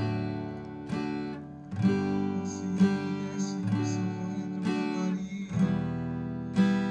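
Acoustic guitar strummed in a slow rhythm, simplified chords in the key of G, with a strong stroke about once a second and lighter strokes between.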